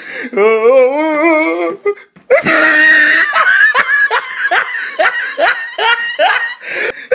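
Laughter: a wavering, drawn-out laugh, a brief break, then about five seconds of loud, rapid laughing in quick falling strokes.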